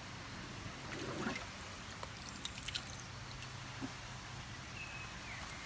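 Faint trickling water with a steady low hum under it and a few light clicks.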